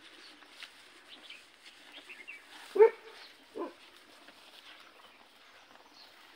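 An animal barking twice, two short sharp calls close together about three seconds in, the first the louder, over faint bird chirps.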